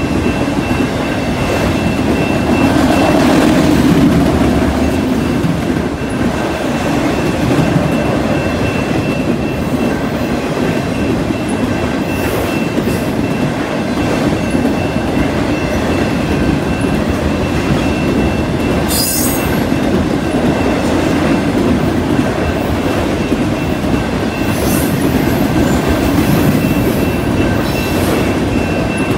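Freight train of autorack cars rolling past at a steady speed: a continuous rumble and rattle of steel wheels on rail, with a few brief high-pitched squeaks, the sharpest about two-thirds of the way through.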